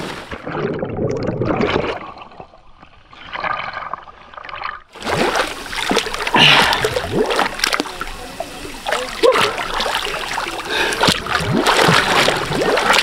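Lake water churning around a swimmer who has just plunged in, sounding muffled and gurgling for about the first five seconds, then opening up suddenly into close splashing and sloshing as he swims at the surface.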